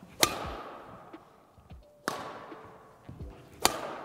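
Badminton racket smashing a feathered shuttlecock three times, one sharp crack every second and a half or so, each ringing out in the hall's echo.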